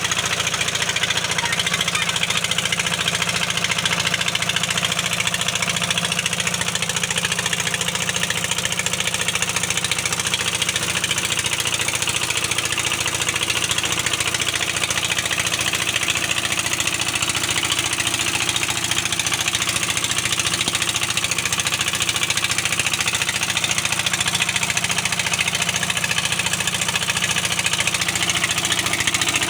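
Heavy-equipment diesel engine running steadily at an even speed, with no change in pitch or level.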